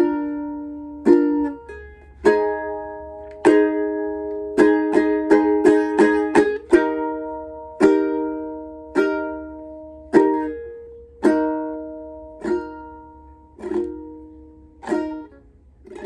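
Instrumental break of a song: a plucked string instrument strumming chords, about one strum a second, each left to ring out, with a quicker run of strums midway.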